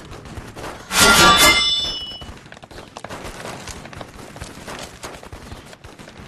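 A loud, quick burst of gunshots about a second in, with a short ringing tail, followed by a quieter stretch of faint scattered clicks.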